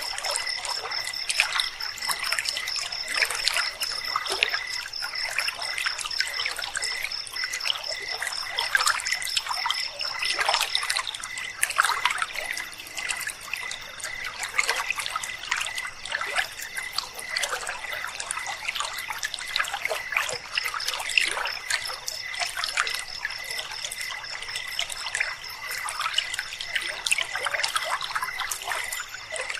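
River water flowing over rocks, with night insects trilling above it: a high pulsing trill that drops out about a third of the way in and comes back about two-thirds in, and a lower steady trill throughout.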